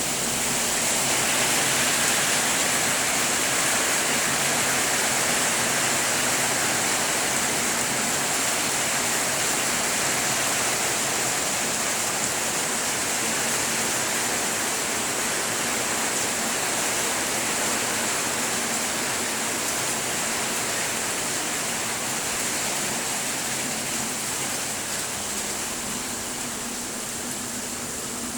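Heavy rain pouring down in a steady, even hiss, easing slightly toward the end.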